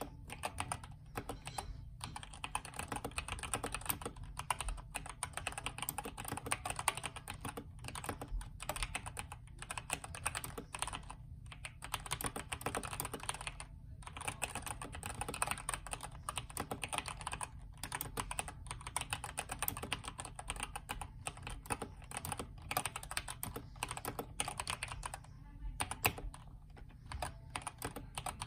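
Typing on a Redragon K552 mechanical keyboard with stock Outemu red linear switches, the case filled with polyfill and the PCB tape-modded: a continuous run of quick key clacks with a few brief pauses. A steady low hum sits under it.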